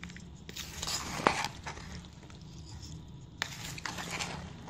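A spoon stirring chopped fruit, macaroni and slivered almonds in a plastic bowl: soft scraping and squishing in two spells, one starting about half a second in and another about three and a half seconds in.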